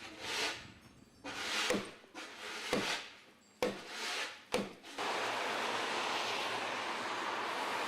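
Rhythmic scraping strokes, roughly one a second, each starting sharply and fading, followed from about five seconds in by a steady rushing noise.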